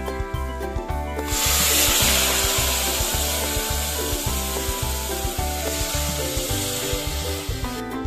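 Water poured into hot oil and frying masala in a pressure cooker: a loud sizzling hiss starts suddenly about a second in, slowly fades, and cuts off near the end, over background music with a steady beat.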